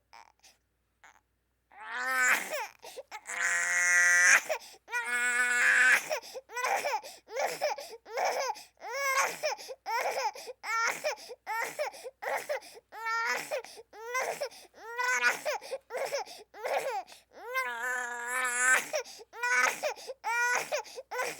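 Infant crying: a brief pause, then long high-pitched wails broken by rapid short sobbing cries about twice a second, with another long wail near the end.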